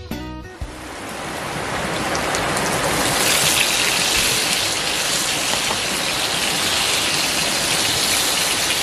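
Steady hiss of water that fades in over the first two to three seconds, reaching well up into the treble. A music track ends just after the start.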